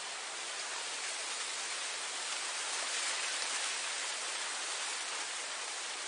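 Wind blowing through grass: an even hiss that grows louder toward the middle and eases slightly near the end.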